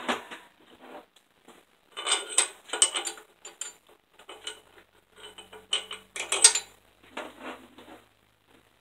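Steel head bolts clinking and rattling against each other and against metal as they are picked up and set into the cylinder head, in several short bursts of metallic clatter. The loudest burst comes about six and a half seconds in.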